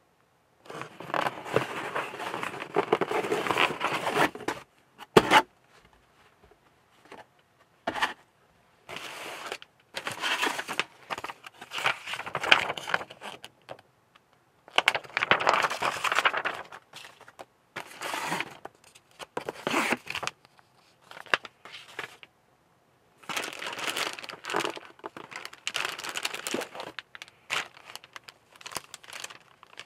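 Paper instruction sheets and clear plastic parts bags crinkling and rustling as a plastic model kit is unpacked and handled, in bursts of a few seconds separated by silent gaps. A couple of sharp single clicks or knocks come in the first third.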